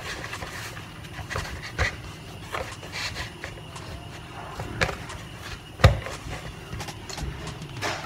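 Hands kneading and squeezing a soft flour dough for boiled dumplings in a plastic bowl: irregular soft rubbing and squishing, with a few sharp knocks, the loudest about six seconds in.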